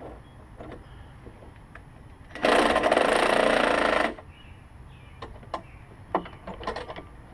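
A small motor-driven tool runs in one loud burst of about a second and a half, starting and stopping abruptly, followed by scattered light clicks and knocks of handling work.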